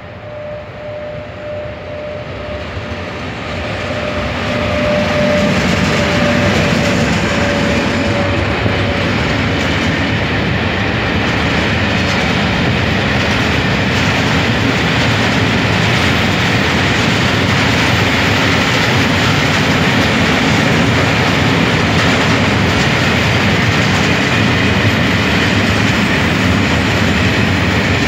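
Freight train hauled by a VR Sr1 electric locomotive passing close by. A steady whine comes from the approaching locomotive and dips slightly in pitch as it goes by. The noise then builds over the first few seconds into the loud, steady rolling of the tank and covered wagons' wheels on the rails.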